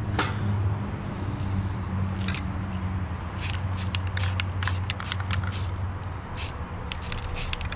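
Aerosol spray paint can being used on a metal scoop in a string of short spray bursts, several a second, over a steady low hum.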